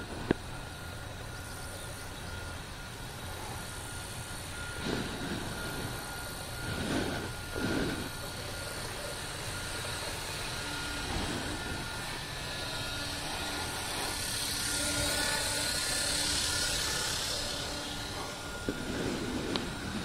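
Maxir radio-controlled helicopter in flight: a steady high whine runs under the rotor noise. The rotor noise swells for a few seconds past the middle, then eases off.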